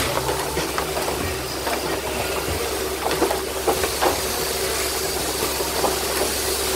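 Shearing-shed machinery running: the steady whirring hiss and hum of shearing handpieces and their overhead drive gear, with scattered light clicks and knocks on the wooden board.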